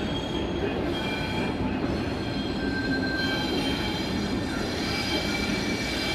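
A 44 class diesel locomotive running as it moves slowly along the track, with a steady low engine rumble and its steel wheels squealing against the rails in thin, high tones that come and go, more of them after about three seconds.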